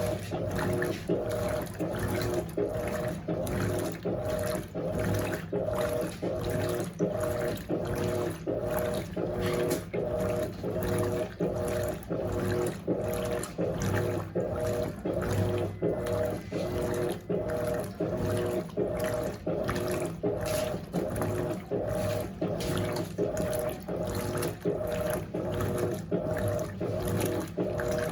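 Electrolux LAC16 top-loading washing machine agitating a full high-water load, its 1/4 hp WEG motor humming as the agitator swings back and forth in an even rhythm a little more than once a second, with water sloshing in the tub.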